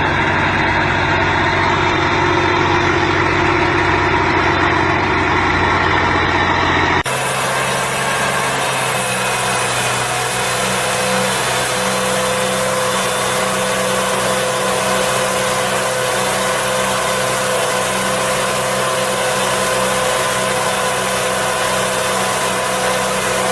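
Heavy machinery engine running steadily; about seven seconds in the sound cuts abruptly to a different engine, also running steadily.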